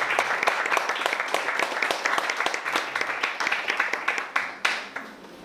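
Audience applauding, many hands clapping at once; the clapping thins out to a few last claps and stops near the end.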